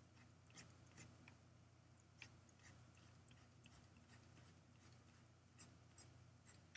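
Near silence: faint scattered clicks and taps, several a second, from the pen or mouse as hatching strokes are drawn, over a low steady hum.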